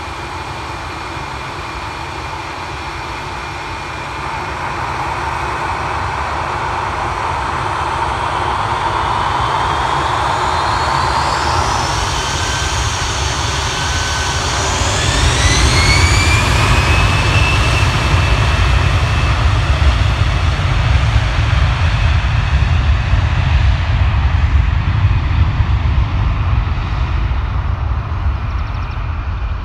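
Jet airliner engines: a steady rumble swells, and about halfway through a whine rises in pitch as the engines spool up, followed by a loud, steady low rumble.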